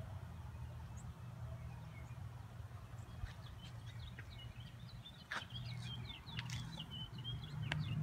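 A flock of birds chirping, many short quick notes overlapping, growing busier about halfway through, over a steady low rumble, with a couple of sharp clicks.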